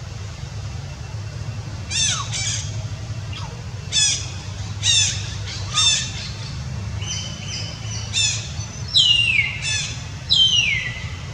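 Newborn kitten mewing: about ten short, high-pitched cries that fall in pitch, starting about two seconds in, with the longest and loudest near the end. A steady low hum runs underneath.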